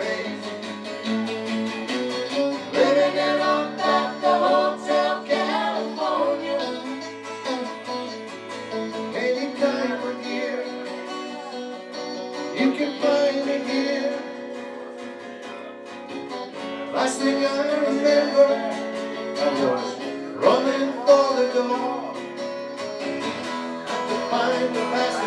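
Live guitar duo playing a song, an electric guitar and an acoustic guitar together, with a voice singing along.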